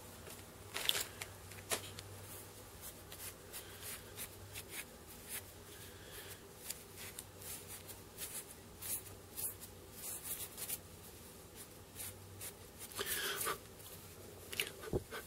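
Faint, irregular scratching and rustling of a clump of temple dog hair being combed out to strip the underfur, over a steady low hum.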